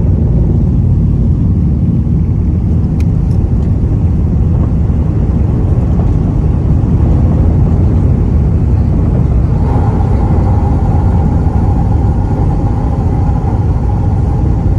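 Airbus A380-800 jet engines at takeoff power, a loud, steady low rumble, with a steady higher tone joining about ten seconds in.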